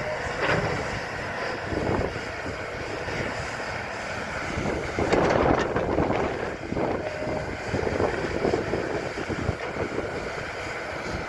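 Excavator running as it digs and dumps dirt onto a pile, with a louder stretch about five seconds in.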